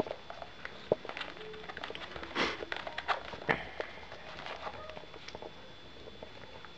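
Handling noise from a black tablet folio case being turned over and handled on a tabletop: scattered small clicks and taps with a few brief rustling swishes.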